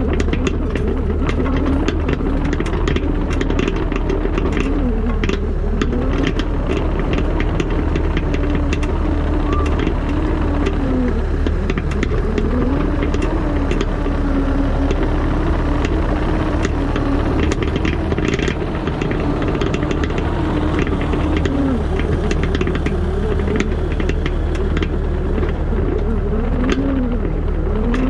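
Diesel digging machine working: a steady deep engine drone with a pitch that rises and falls every few seconds as the hydraulics take load. Frequent clicks, knocks and rattles sound over it throughout.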